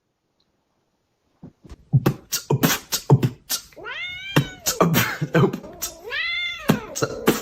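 Beatboxing: a fast run of sharp mouth clicks and kick-drum beats starting about two seconds in, with two drawn-out meow sounds that rise and fall in pitch, about four and six seconds in.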